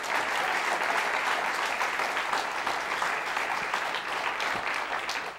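Studio audience applauding a guest's entrance, a steady clapping that eases off near the end.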